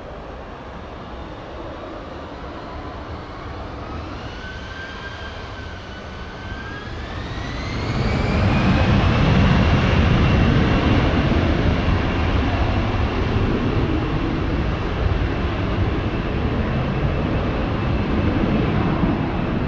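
Airbus A320-200 jet engines spooling up for takeoff: a whine rising in pitch over the first eight seconds or so, then loud, steady engine noise with the whine held high as the airliner accelerates down the runway at takeoff thrust.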